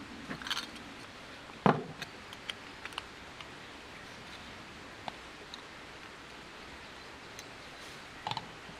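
Light handling noises: scattered small clicks and taps, with one sharper knock about two seconds in and a quick double tap near the end, over a faint steady hiss.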